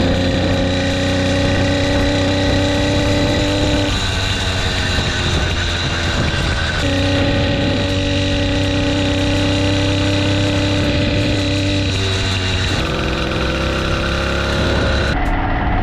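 The 80cc two-stroke engine of a motorised bicycle kit running at a steady speed, its note holding level and then shifting to a new pitch every few seconds.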